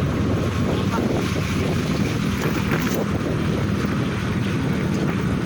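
Vehicle engine running steadily while on the move, with wind buffeting the microphone.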